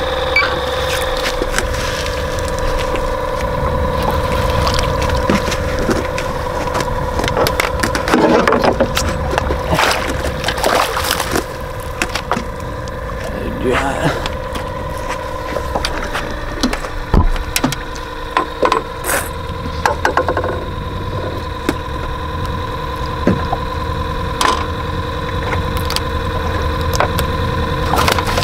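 Boat motor running steadily with a constant hum, with scattered knocks and clatter of gear in the boat.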